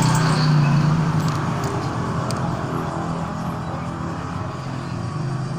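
An engine running with a steady low drone that slowly fades.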